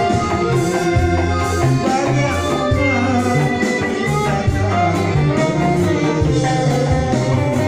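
Keroncong band playing: electric bass holding a steady bass line under strummed ukulele-type strings and guitar, with keyboard, and a man singing.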